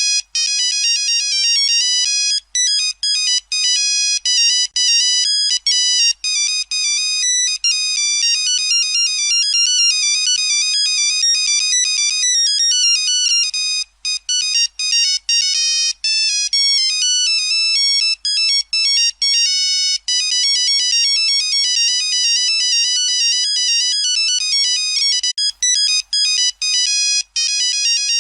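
Nokia mobile phone ringtone: a fast, high-pitched melody of short electronic beeping notes, repeating with brief breaks between phrases.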